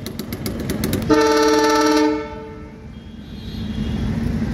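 A horn sounds for about a second, about a second in, over a rapid ticking that stops with it. Near the end a low rumble builds as a train comes through the level crossing.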